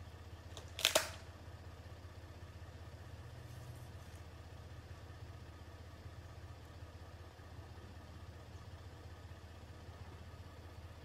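An American alligator's jaws crunching down on a turtle's shell: one sharp double crack about a second in. After it only a steady low hum remains.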